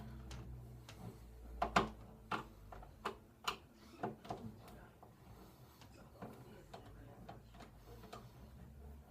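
Screwdriver driving a screw into a wobbly doorknob's mounting, a string of irregular clicks and taps as the tool turns and shifts in the hand.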